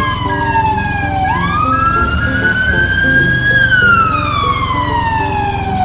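Ambulance siren wailing: a slow glide down in pitch, back up, then down again, over background music.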